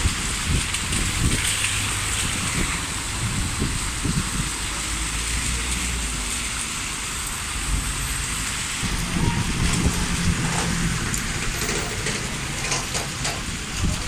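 Rain falling on a town street, with cars and vans driving past on the wet road; the steady hiss of rain and tyres sits over a low engine rumble that swells as a vehicle passes near the middle.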